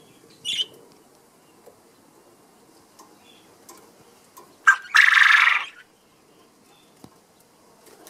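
Male Japanese quail crowing its mating call: a short high note about half a second in, then near the middle a sharp note followed by a loud, harsh burst just under a second long.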